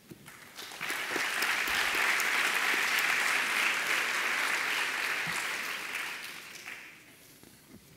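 Audience applauding, building up about a second in, holding steady, then dying away near the end.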